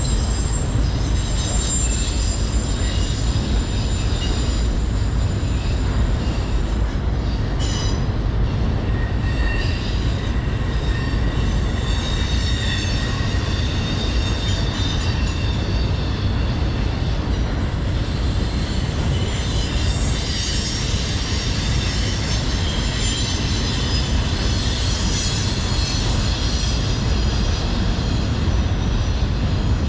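Freight train of autorack cars rolling past in a steady loud rumble, with thin high wheel squeal coming and going throughout. A single sharp clank comes about eight seconds in.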